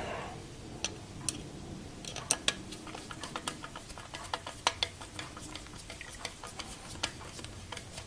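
Phillips screwdriver driving a mounting screw into a hard drive held in a steel drive cage: a run of faint, irregular metallic clicks and ticks as the screw turns.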